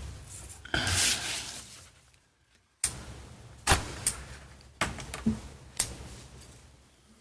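A series of sharp knocks and thumps, about five over several seconds, each ringing out briefly in a room.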